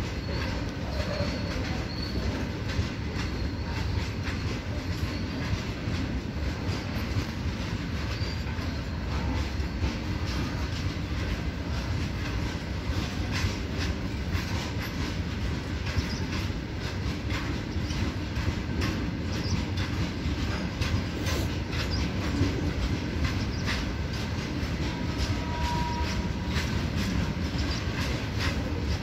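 Loaded freight train of open box wagons rolling past: a steady rumble of wheels on rail, with rapid irregular clicks and knocks as the wheels cross the rail joints.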